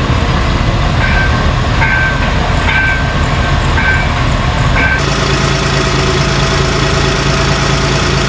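Heavy machinery engine running, with a warning alarm beeping about once a second, five beeps in all. About halfway through the sound changes abruptly to a steadier engine hum.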